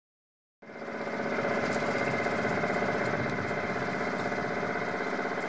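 Boat engine running steadily with a fast, even pulse, cutting in from silence about half a second in.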